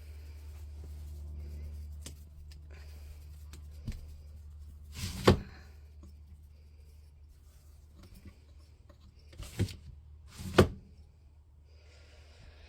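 Windows being opened: short scrapes and sharp knocks as the sashes are shoved and hit their stops, with two loud bangs about five and ten seconds in, over a low steady hum.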